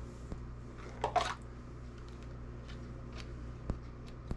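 Ladling chili from a slow cooker into plastic containers: a short scrape about a second in and a few light knocks and clicks of the ladle and containers near the end.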